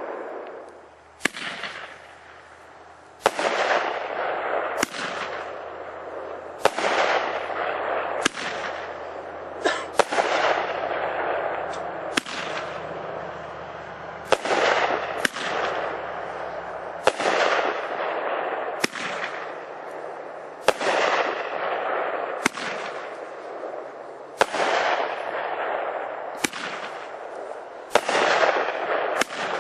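Aerial fireworks bursting one after another, a sharp bang every one and a half to two seconds, each followed by a crackle that fades. The sequence starts about a second in, after a brief lull.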